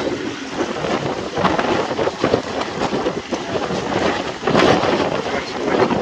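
Wind blowing across the microphone in uneven gusts.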